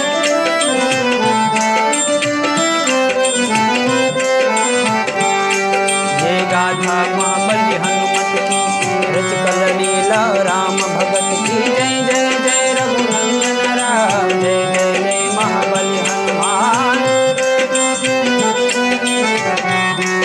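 Instrumental music of a devotional song: tabla keeping a steady rhythm under a melodic instrument line with sustained notes and gliding ornaments.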